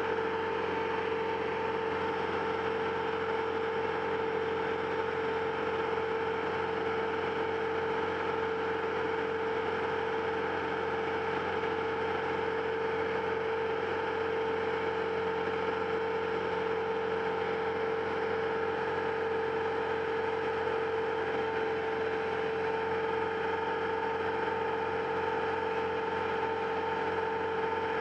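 A machine running at a constant speed: a steady mechanical hum that holds one pitch with overtones and never changes.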